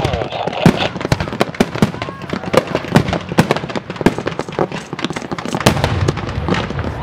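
Fireworks display: a rapid, uneven run of sharp bangs and crackles.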